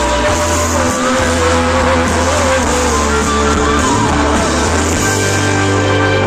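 Live band music played loud over a PA: electric guitar, bass, drums and keyboards, with a singer carrying a slow, held melody line.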